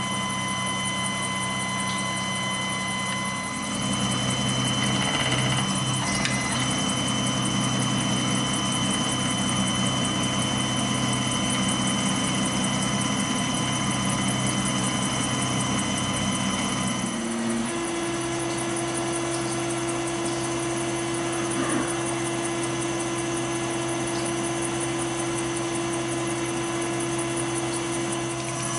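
CNC milling machine running, cutting a side window into a Smith & Wesson M&P 40 2.0 pistol slide. Its steady machine hum gets louder about four seconds in, and its pitch steps higher partway through.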